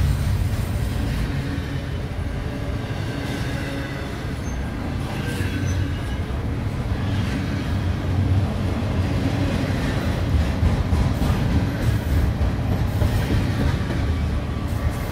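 Double-stack intermodal freight train of container well cars rolling past close by: a steady low rumble of steel wheels on rail, with occasional clacks.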